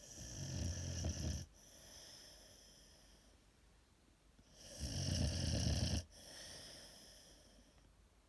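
American Staffordshire Terrier snoring in deep sleep: two loud, low snores about four and a half seconds apart, each trailing off into a softer, longer breath.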